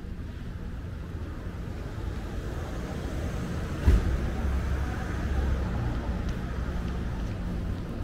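City street traffic: a steady low engine rumble that swells as a vehicle passes, with one sharp thump about halfway through.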